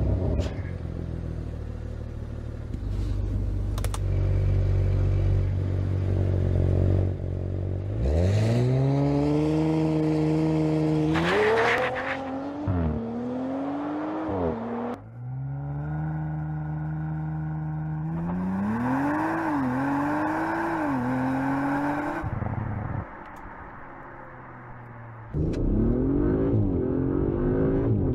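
Audi RS5's 2.9-litre twin-turbo V6 engine: a steady low rumble at first, then from about 8 seconds in a hard acceleration with the pitch rising in each gear and dropping back at each upshift. After a brief quieter lull near the end, it pulls hard again.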